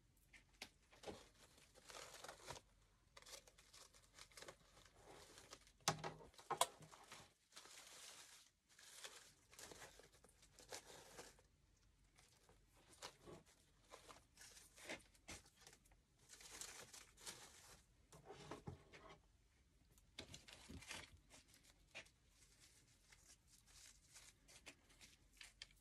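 Faint rustling and crinkling of artificial flower and greenery stems being handled and pushed into a grapevine wreath, coming in short spells, with two sharper taps about six seconds in.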